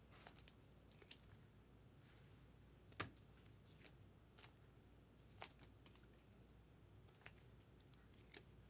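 Near silence with scattered soft clicks and ticks of trading cards being handled and set down. The sharpest come about three and five and a half seconds in.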